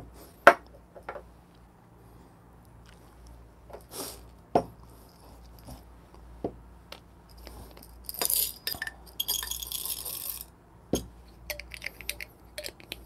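Glass coffee-bean vials and a stainless steel dosing cup clinking as they are handled, with whole coffee beans rattling. There are scattered separate clinks, then a denser bright rattle lasting about two seconds past the middle.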